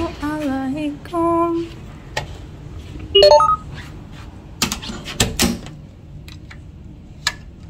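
A woman says a short spoken greeting. About five seconds in come a few sharp clicks and one dull thunk, as a key card goes into a hotel room's wall power slot.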